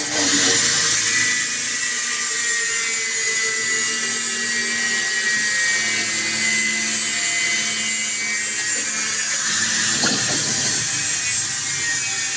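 Power tool running steadily on metal, a whining machine noise that starts abruptly and holds steady.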